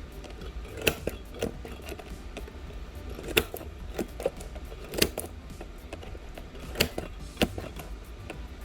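Irregular sharp clicks and taps of a tool chipping and picking shattered back glass off an iPhone 11's frame, about seven in all, over a steady low hum.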